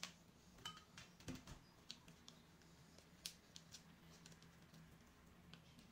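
Faint scattered snips and small crinkling clicks as plastic seasoning sachets are cut open with scissors and emptied into a bowl of instant noodles. The loudest clicks come about a second in and again about three seconds in.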